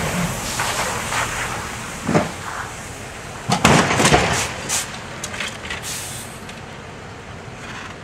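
A snowplow truck's engine running as a sliding SUV crashes, with a loud crunching impact about three and a half seconds in and a few smaller knocks after it.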